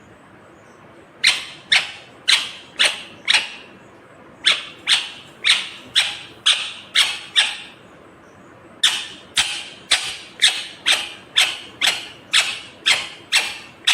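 Indian ringneck parakeet calling: three runs of loud, sharp calls, about two a second, with short pauses between the runs.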